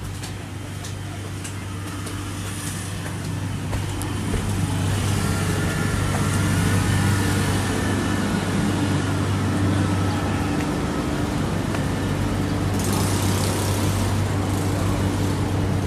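City road traffic, a steady wash of passing cars and other motor vehicles that grows louder a few seconds in and then holds, over a constant low hum.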